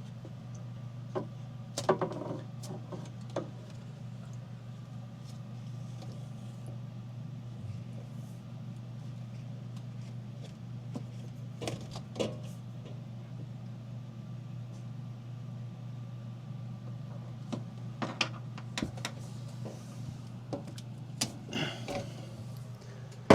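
A steady low hum with scattered clicks and knocks of hand work on metal appliance parts, the sharpest knocks a couple of seconds in and again near the end.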